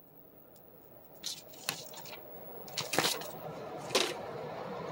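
Replacement ECM blower motor in a residential air handler spinning up, its air noise rising steadily over the first three seconds and then holding. A few sharp clicks and knocks sound on top, the loudest about three seconds in.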